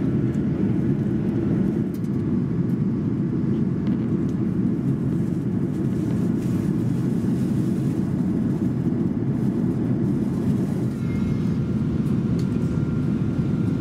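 Steady low roar inside the cabin of an Airbus A330-300 shortly after take-off: engine and airflow noise from its Rolls-Royce Trent 700 engines, heard from a window seat beside the engine. A faint steady whine joins near the end.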